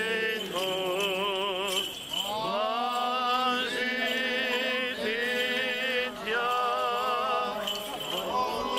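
Orthodox church chant sung in long phrases with wavering, gliding pitch, broken by a few brief pauses.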